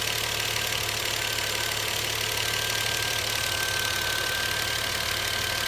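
Volvo S60 T6's 3.0-litre turbocharged straight-six idling steadily as it warms up, with a thin steady high whine over the engine. No distinct clicks stand out.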